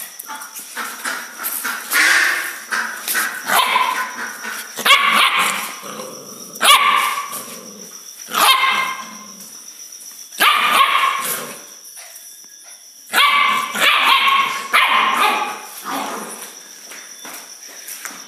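Young Gultair (Pakistani Gull Terrier) puppy, 25 days old, barking and yapping in short, high-pitched bursts, one every second or two.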